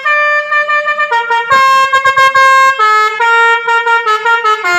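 Pakistani-style telolet (basuri) bus horn playing a loud melody: a held note, a long held note, then a quick run of short notes stepping up and down in pitch, stopping near the end.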